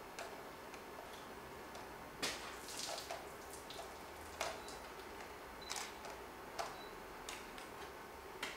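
Red liquid dripping from an upturned bottle, single drops landing with irregular sharp clicks every half second to a second, over a steady faint hiss.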